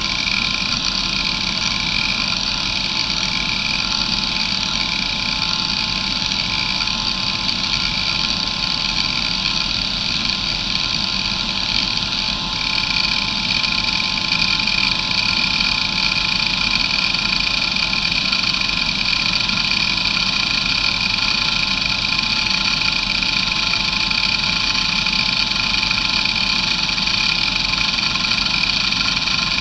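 Areal Technology MD2085 2.5-inch 85 MB hard drive with glass platters, spinning with a steady high whine and hiss while its heads seek through hdmotion's sweep patterns. The seeks are barely audible. The sound shifts slightly and gets a little louder about twelve seconds in.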